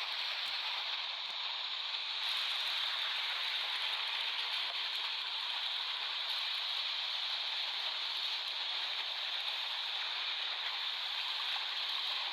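Ocean waves washing onto a beach: a steady hiss of surf that grows slightly louder about two seconds in.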